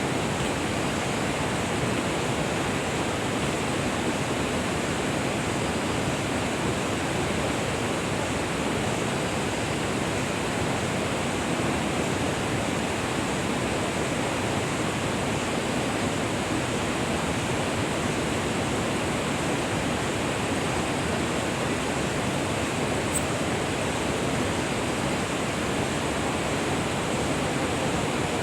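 Steady rush of flowing water from a stream, an even noise that does not change.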